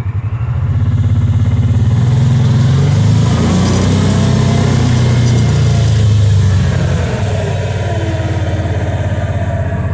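Kawasaki Teryx side-by-side's V-twin engine running while driving, picking up revs about a second in and easing off slightly near the end.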